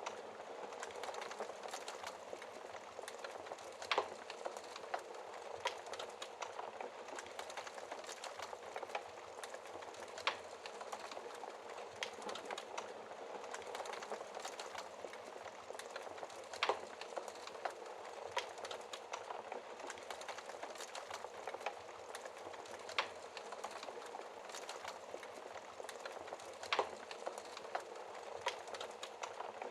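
Wood fire crackling steadily, with a sharp louder pop every few seconds.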